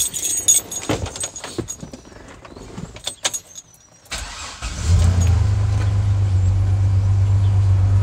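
Keys jingling and clicking at the ignition. About four seconds in, a brief crank, then the Chevrolet Silverado's 4.3-litre V6 catches at once and settles into a steady idle. It runs smoothly, without misfires, on a new distributor cap and rotor that have cured the weak spark on cylinders 1 and 2.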